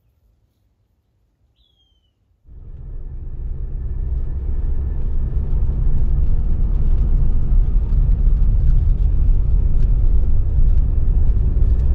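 Near silence at first, broken by one short falling bird chirp. Then, about two and a half seconds in, a Jeep Wrangler driving: a steady low rumble of engine and road noise heard from inside the cab, building over a few seconds.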